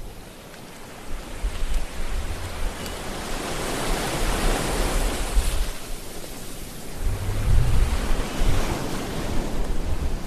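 Sea surf with wind: waves swelling and washing in, one surge peaking about halfway through and another near the end, over a low rumble of wind.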